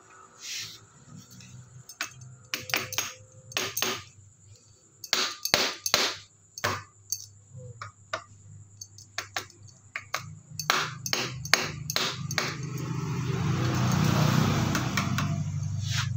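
Irregular metallic clicks and clinks of a socket wrench and hands working the cover bolts on a Yamaha Mio Sporty's aluminium cylinder head. About ten seconds in, a steady noise rises, peaks and eases off under the clicks.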